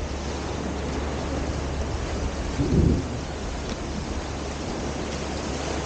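Wind buffeting the microphone: a steady low rumble and hiss, with a stronger gust about three seconds in.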